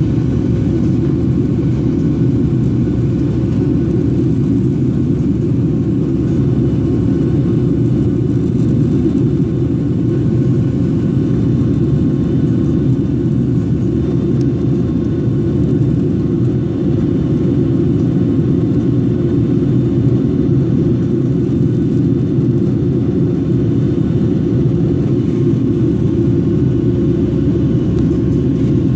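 Jet airliner cabin noise from a window seat during the climb: the engines and rushing air make a loud, even low rumble, with a faint steady hum above it.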